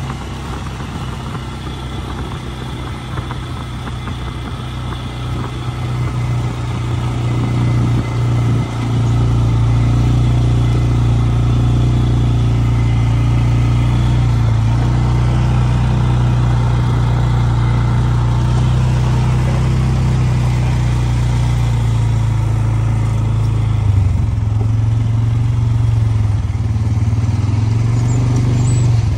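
ATV engine running steadily as the quad is ridden along, getting louder about nine seconds in and dipping briefly near the end.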